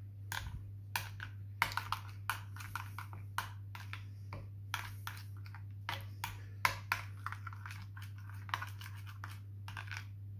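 Metal spoon stirring a thick yogurt-and-spice marinade in a glass bowl, clinking and scraping against the glass in irregular taps a few times a second, over a steady low hum.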